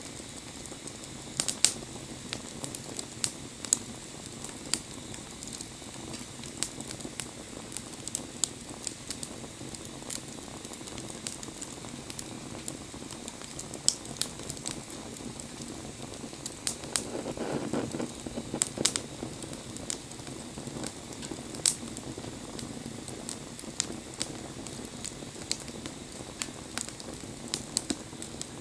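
Wood bonfire crackling, with sharp pops and snaps scattered irregularly over a steady low rush of burning. The rushing swells briefly a little past the middle.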